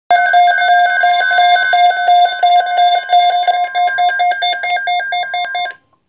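NOAA weather alert radios sounding their electronic alert for an incoming flash flood watch: loud, rapid beeping at several pitches over a steady tone, cutting off suddenly near the end.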